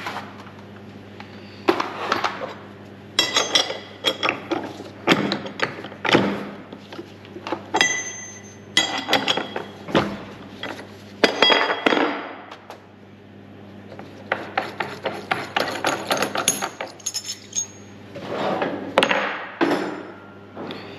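Metal tools and parts being handled in a machine shop: irregular clinks and knocks, some ringing briefly, over a steady low hum.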